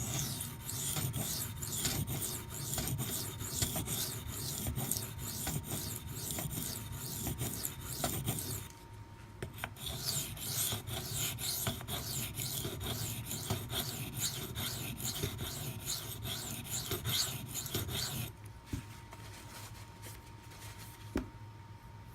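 Maxamet steel knife blade scraped back and forth on a 400-grit CBN waterstone, about two strokes a second, with a short pause around nine seconds in; the strokes stop a few seconds before the end. The coarse stone is grinding away the last of a chip in the edge.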